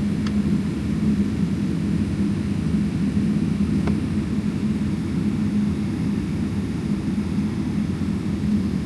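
Steady low rumble and hum heard from inside the cabin of a Boeing 777-300ER, from its engines and air system, with a constant tone sitting in the rumble. Two faint ticks come through, one just after the start and one about four seconds in.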